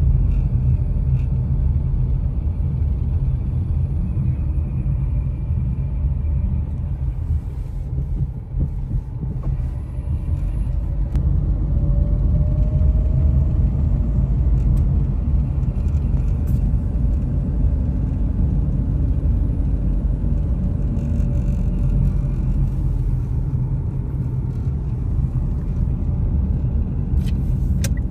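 Steady low rumble of a car being driven on a city road: road and engine noise heard from inside the moving car.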